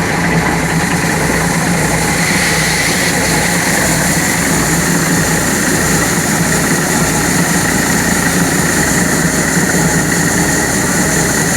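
WORLD 4LZ-4.0E combine harvester running steadily, its 88 hp engine and machinery making a loud, unbroken mechanical noise.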